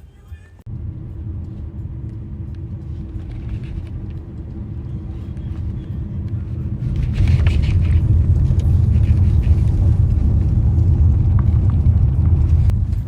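Steady low rumble of a moving vehicle, starting suddenly just under a second in and getting louder, with more hiss, about seven seconds in.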